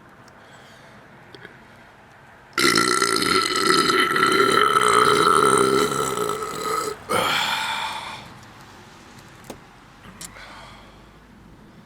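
A man burping loudly: one long belch of about four seconds, then a shorter second one right after.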